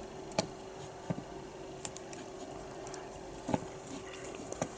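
A handful of small sharp clicks and taps from hands working thin wires together, about five over a few seconds, over a faint steady hum.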